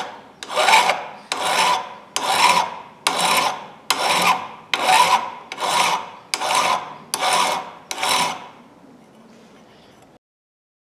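Hand file scraping along the steel edge of a locking pliers in repeated strokes, about eleven of them a little under a second apart, then stopping; the sound cuts to silence near the end.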